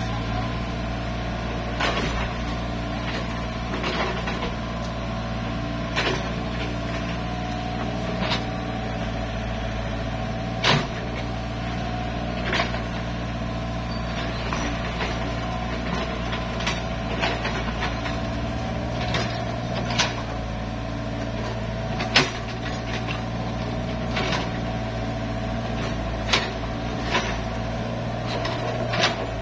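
Mini excavator's diesel engine running steadily as it digs, with sharp clanks and knocks from the bucket and arm every second or two. The loudest knocks come about a third of the way through and about three-quarters through.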